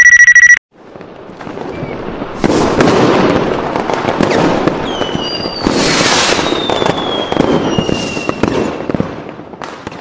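Fireworks sound effect: crackling that swells and fades in waves, with falling whistles around the middle, after a short high beep at the very start.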